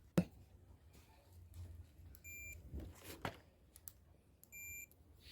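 Two short, high electronic beeps about two seconds apart, with a few sharp clicks in between from work on the circuit board.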